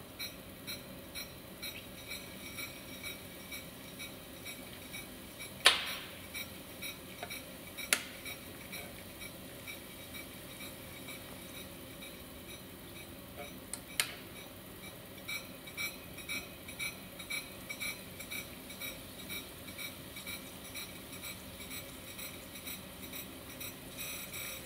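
Century-old Brown & Sharpe No. 1 cylindrical grinder running while grinding a workpiece: a faint steady hiss with soft ticks about twice a second. Three sharp clicks stand out, the loudest about six seconds in, the others near eight and fourteen seconds.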